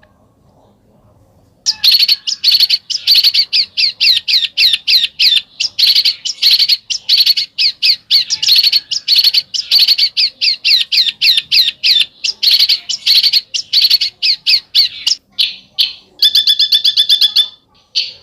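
A songbird giving a besetan: a harsh, rapid chatter of short downward-slurred notes, about five a second, starting after a short pause. Near the end it changes to a tighter, steadier trill.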